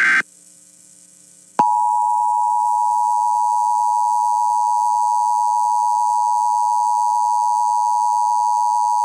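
The last of three SAME digital header bursts ends, and after a short pause the Emergency Alert System two-tone attention signal (853 and 960 Hz sounded together) starts about a second and a half in and holds steady.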